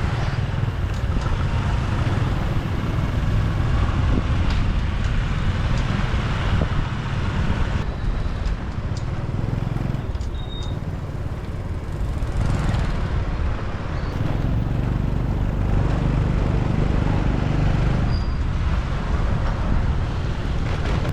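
Steady road noise of a motorbike ride in city traffic: engine and tyre rumble with other traffic around, swelling and easing a little at times.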